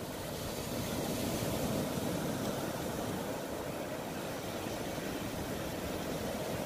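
Surf washing up over wet sand and pebbles: a steady rushing of waves that swells slightly about a second in.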